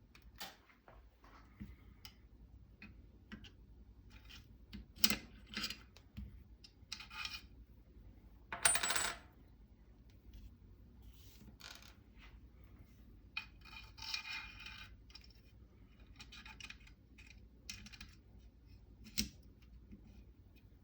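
Small metal parts clicking, scraping and clinking as a rifle's front receiver plate is slid in from the side and its bracket pushed forward with a screwdriver. There is a brief ringing clink about nine seconds in and a rasping scrape around fourteen seconds.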